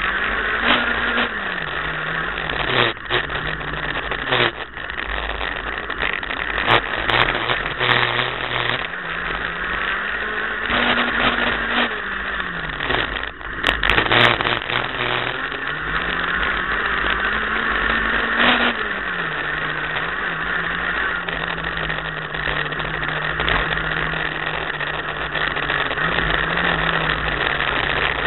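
Renault Clio Williams' 2.0-litre four-cylinder engine heard from inside the cabin while driving the autocross track. The revs climb and drop several times over heavy road and wind noise, with a few sharp knocks.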